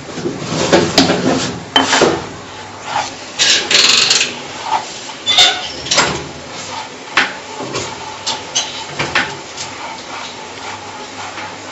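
Hands rubbing and rolling oiled semolina grains for berkoukes against each other and the bowl: a run of irregular rasping, scraping strokes with small clicks, busiest in the first half.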